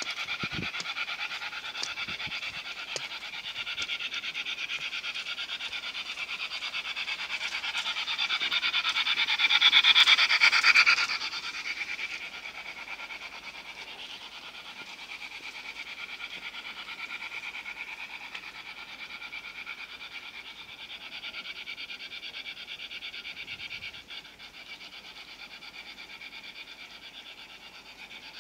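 LGB Stainz G-scale model locomotive running along garden track, its electric motor and gears making a steady, fine whirring. It grows louder, peaking about ten seconds in, then drops off and stays fainter as the engine moves away.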